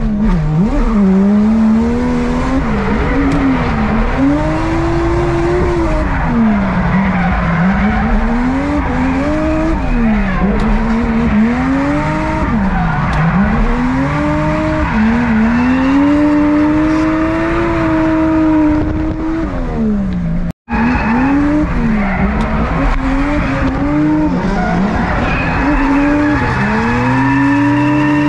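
Drift car engines revving hard and falling back again and again, the engine note rising and dropping every second or two, with tyres squealing, heard from inside a car on a tandem drift run. After an abrupt cut about two-thirds of the way in, a drift car's engine is heard revving and climbing in pitch.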